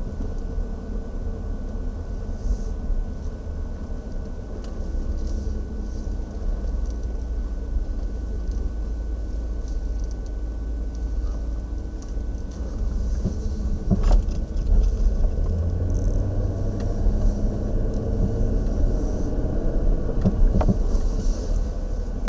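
Steady road and engine rumble inside the cabin of a 2014 Dodge Durango driving over light bumps, with a sharp clunk about two-thirds of the way through and a couple more near the end. It is the suspension clunk over bumps that the owner suspects comes from worn sway bar links.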